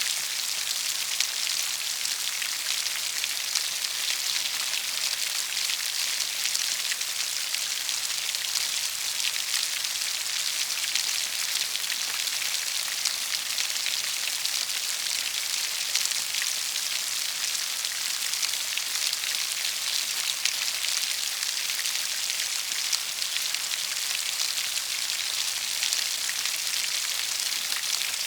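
Rain falling steadily: a dense, even patter of many small drops, mostly high in pitch, with no pauses or changes.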